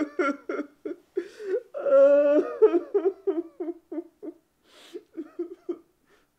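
A man sobbing: a long wailing cry about two seconds in, then short, jerky sobs that trail off and stop near the end.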